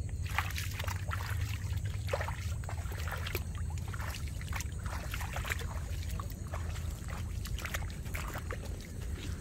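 Bare feet wading through shallow, weedy water, with irregular splashing and sloshing at each step, over a steady low rumble.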